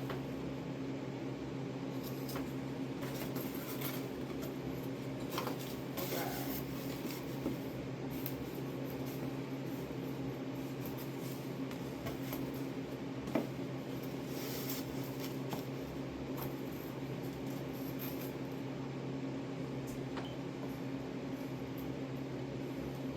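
Faint clicks and rubbing as the cardboard and plastic pieces of a marquee number are handled and fitted together, over a steady low room hum.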